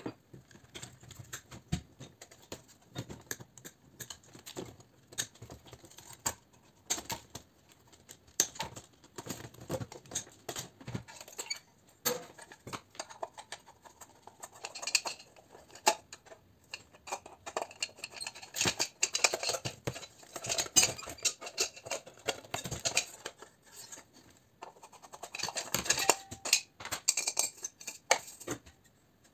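Irregular clicks, clinks and rattles of hand tools and metal parts as a recessed downlight fitting is taken apart by hand: wires being cut, a screwdriver working the fixings, and the thin aluminium reflector being handled. The clatter gets busier a little over halfway through and again near the end.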